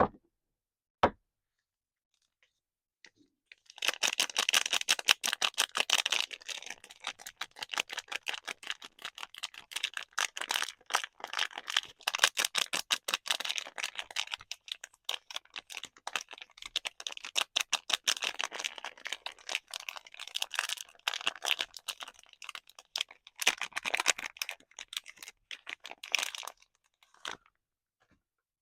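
A single click, then a long run of dense, rapid crinkling and crackling as soap packaging is unwrapped by hand.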